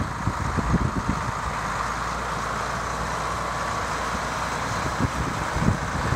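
John Deere 4440's turbocharged six-cylinder diesel engine running steadily, with wind buffeting the microphone near the start and again near the end.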